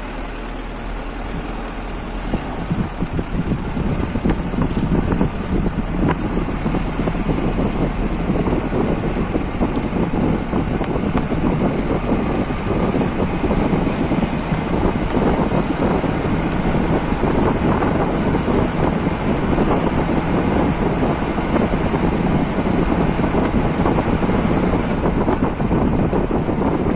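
A vehicle's engine and road noise runs steadily, with wind buffeting the microphone. It grows louder over the first few seconds, then holds.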